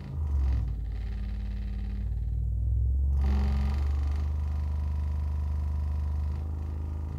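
Two Magnat MW 200.8 CFC 8-inch woofers, out of their cabinets, playing low bass test tones in free air for an excursion test. The low hum steps to a new pitch a few times.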